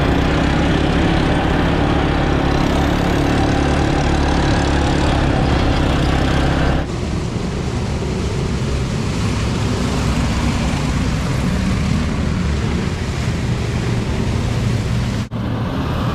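ATV engine running steadily under throttle with a loud rush of wind or water noise; the sound changes abruptly about seven seconds in and drops out for an instant near the end.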